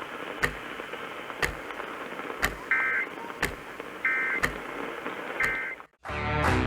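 Emergency Alert System end-of-message signal: three short digital data bursts, about 1.3 s apart, over receiver hiss, marking the end of the flash flood warning broadcast. A sharp tick sounds about once a second throughout. The audio cuts out near the end and guitar music begins.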